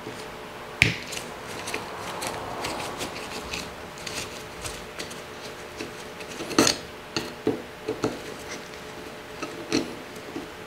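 Hex key working the screws that hold the alignment keys on the underside of a steel milling vise: scattered light metal clicks and clinks, the sharpest about two-thirds of the way through.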